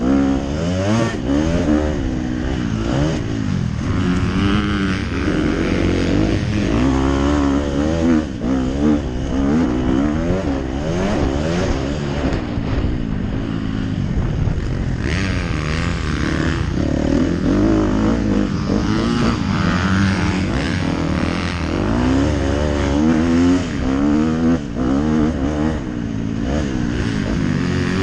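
MX2-class motocross bike engine revving hard as it is ridden around a dirt track, the pitch repeatedly climbing and dropping with throttle and gear changes, heard close from the rider's helmet.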